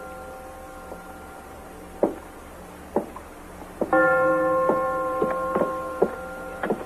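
Footsteps of boots on a wooden floor, about one step a second, over a ringing bell-like tone. The tone fades away and is struck again loudly about four seconds in, then slowly dies down.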